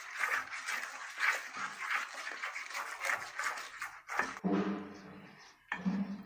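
A spoon stirring and scraping a pan of thickening cocoa-and-milk mixture on low heat, in quick repeated strokes that stop about four seconds in. Two short voice-like sounds follow near the end.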